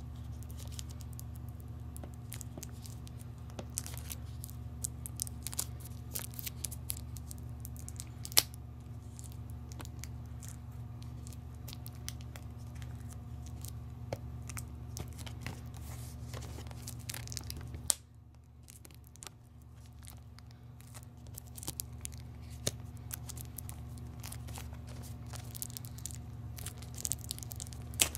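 Plastic packaging being torn and crinkled off a DVD box set, with many sharp crackles, over a steady low hum.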